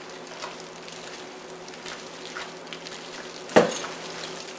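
Spatula stirring mayonnaise-dressed chicken salad in a glass mixing bowl: soft wet squishing and scraping, with one sharp knock about three and a half seconds in.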